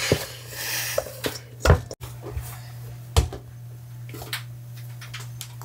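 Sourdough being kneaded and stretch-folded by hand: a few knocks and soft thuds of hands and dough against a stainless-steel bowl and then a countertop.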